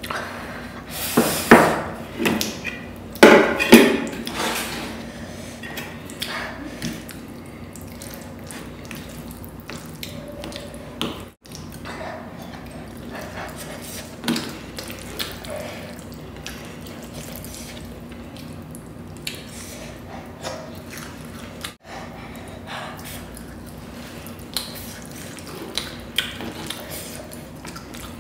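Close-miked eating sounds of a person chewing and slurping spicy instant noodles: a few loud wet mouth noises between about one and four seconds in, then quieter wet chewing with scattered small clicks.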